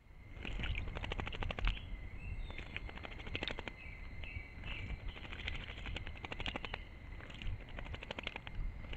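A bird bathing in a shallow pool, splashing and flicking water with its wings in several short bursts of crackling splashes.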